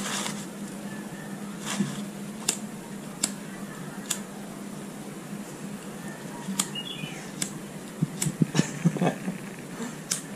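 A series of short, sharp clicks, roughly one a second and bunched more closely about eight seconds in, over a steady low hum.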